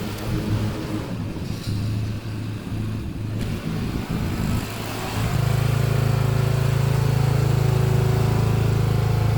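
Riding lawn mower engine running, uneven at first, then settling into a louder, steady drone from about five seconds in.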